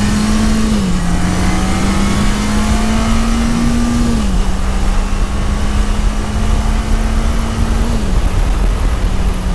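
1980 Yamaha XS1100 Special's air-cooled inline-four engine pulling under a gentle roll-on while riding, its note climbing slowly and dropping sharply three times as the rider shifts up. Heavy wind rumble on the handlebar-mounted camera's microphone.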